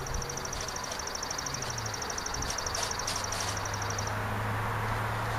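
A high, rapid trill of about ten pulses a second from a small animal (insect or bird), stopping suddenly about four seconds in, over a steady low hum.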